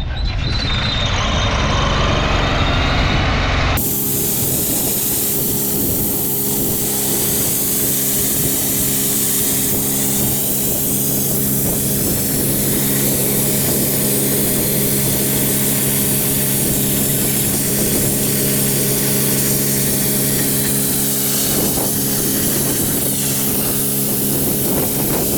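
A machine running steadily with a constant hum and a loud hiss, after a sudden change about four seconds in.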